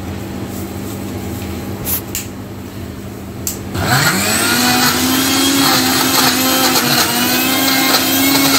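Blender motor starting about four seconds in, its pitch rising quickly and then running steadily at speed as it mixes mango pulp with a cream base into a thick shake. Before it, a steady background hum with a few light knocks.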